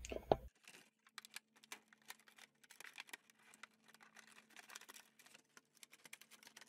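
Faint, irregular small clicks and crinkles of a thin clear plastic salad container being cut with scissors and handled, over a faint steady hum.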